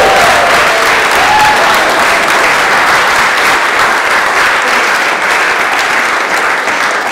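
Crowd applauding, with cheering and a whoop about a second in; the clapping thins slightly near the end.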